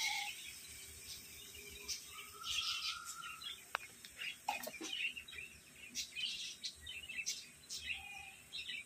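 Several small birds chirping, with short, high calls coming irregularly throughout.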